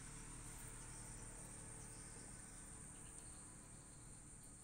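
Faint, steady high-pitched insect chirring, with little else above the quiet background.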